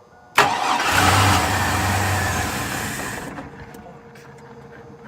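1999 Chevy Blazer's 4.3-litre V6 cranked on starting fluid, catching and running for a couple of seconds before dying away. It starts but is not being fed fuel, which the owners put down to the fuel pump or fuel pressure.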